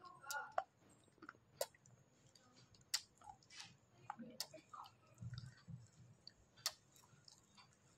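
Faint chewing and crunching of a lightly smoky baked clay roll in the mouth, with a few sharp crackling clicks scattered through it.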